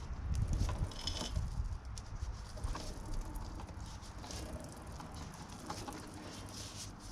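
Spanner working a motorcycle's rear-axle chain adjuster bolt: scattered small metallic clicks and taps, with a low rumble of handling in the first second.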